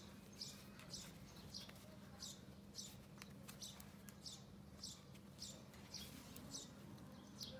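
Knitting needles working fluffy yarn, faint and rhythmic: a short scratchy squeak of yarn sliding over the needles about twice a second, with small clicks, over a steady low hum.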